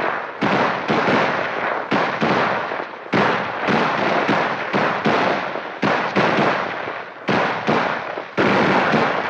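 M16A1 rifle firing a rapid, irregular string of shots, about two a second, each with an echoing tail. The rifle is back in action after oil was squirted into the receiver to get corroded ammunition to fire.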